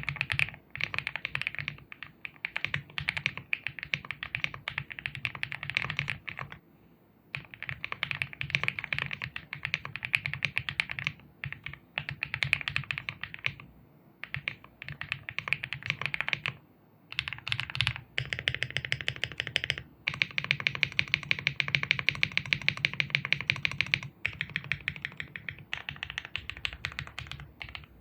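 Typing on a MechLands Vibe75 gasket-mount mechanical keyboard: rapid keystrokes in bursts of a few seconds, with short pauses between them.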